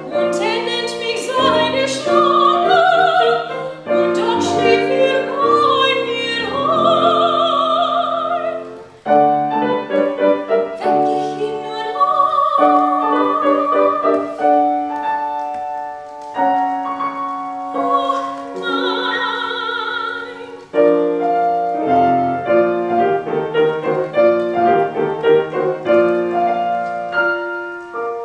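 A woman singing a German art song in trained operatic style with vibrato, accompanied by a grand piano. Near the end the voice stops and the piano plays on alone to close the song.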